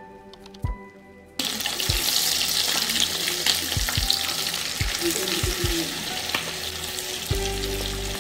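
Yam sticks frying in hot oil in a pan, a dense sizzling crackle that starts about a second and a half in, with a few soft low thumps.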